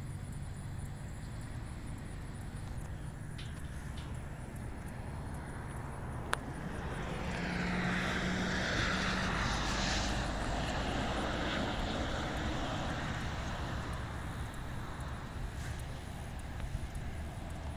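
A motor vehicle passing, swelling louder and fading away over several seconds around the middle, over a steady low rumble.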